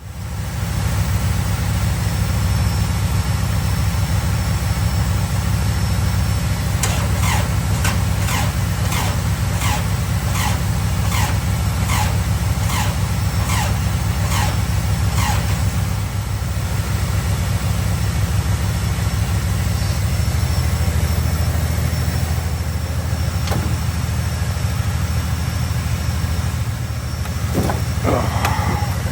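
A vehicle engine idling steadily. For a few seconds in the middle, a series of short falling chirps repeats about every half second or so.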